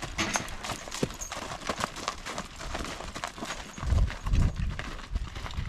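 Draft horses' hooves clip-clopping in a run of sharp steps, with a loud low rumble a little after the middle.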